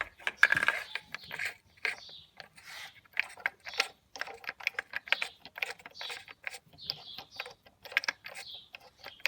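Ratchet wrench clicking in quick, uneven runs as a bolt is turned.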